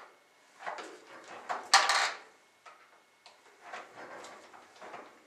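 A hand-worked reloading press pushing cast lead bullets up through a .358 Lee sizing die, its handle stroked, with the clink of bullets picked from a plastic tub. Several short sliding and clattering sounds come one after another, the loudest about two seconds in.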